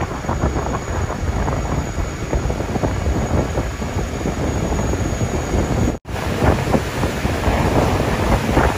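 Wind buffeting the microphone on the open deck of a moving boat, over the rushing of water and the boat's running noise. The sound cuts out for a moment about six seconds in, then carries on as before.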